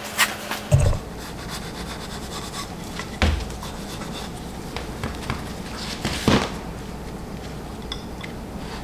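Light rubbing and a few scattered knocks from work on a hatchet head at the bench, over a low steady hum.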